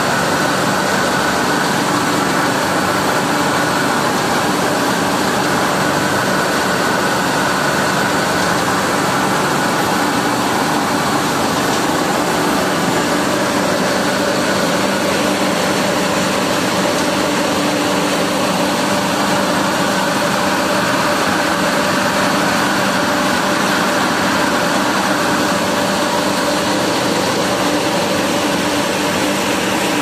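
Belt-driven industrial centrifugal blower running steadily, drawing moist air from a humidifier: a loud, even rush of air with a few steady hums from the motor and fan.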